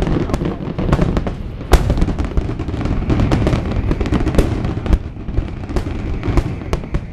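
Aerial fireworks shells bursting in rapid succession: a dense, continuous run of bangs over a low rumble, with one especially loud bang a little under two seconds in.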